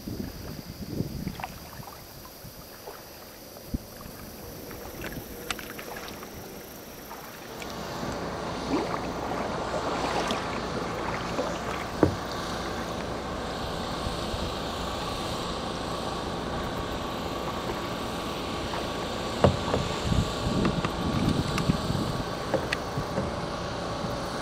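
A steady engine drone with several held tones comes up about seven seconds in and runs on: a work truck's engine running at a road bridge. Before it there are only light paddle drips and a few knocks, with occasional sharp knocks later.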